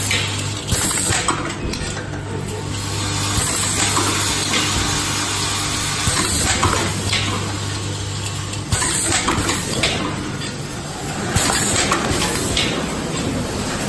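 Automatic eyelet-and-ring assembly machine running: a steady hum from the vibratory bowl feeder, with repeated clicks and the clatter of small metal parts from the indexing table and manipulator. The hum drops away about two-thirds of the way through while the clicking and clatter go on.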